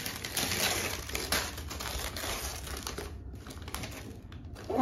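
Packaging crinkling and rustling as a wrapped gift is unwrapped by hand, a dense crackle of small clicks that eases off about three seconds in.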